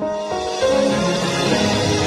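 Guzheng (Chinese zither) music over a fuller backing arrangement, which swells in at the start with a bright, hissing wash above the plucked notes.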